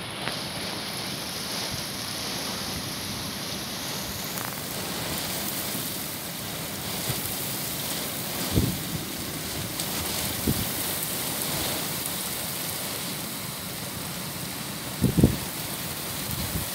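Hurricane rain and wind, a steady hiss of rain, with a few brief low thumps partway through and near the end.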